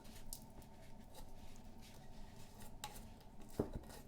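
Faint light taps and clicks of small diecast car parts being handled and set into a container, with a couple of sharper knocks near the end.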